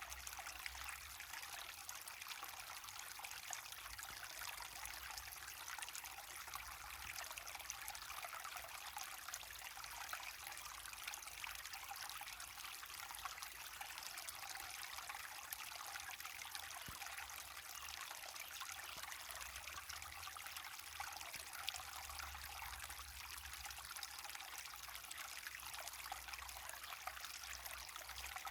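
River water pouring steadily over a waterfall, an even splashing hiss with no change throughout.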